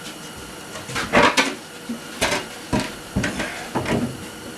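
A series of knocks and clunks of plywood panels being handled and set against one another, a close pair about a second in and several single knocks after.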